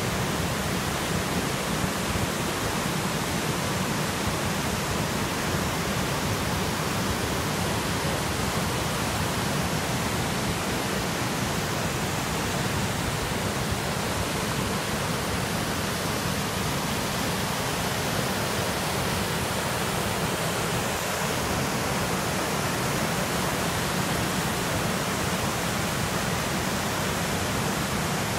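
River waterfall and rapids: whitewater pouring over rock ledges in a steady, unbroken rush.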